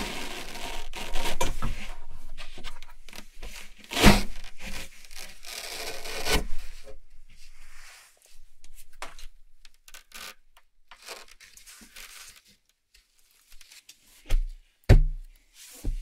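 Hook-and-loop (Velcro) surfaces rasping and ripping as a large panel is shifted and pressed onto its base, steady for the first half with two louder rips about four and six seconds in. After that come sparse softer rustles and three dull thumps near the end as hands pat the panel down.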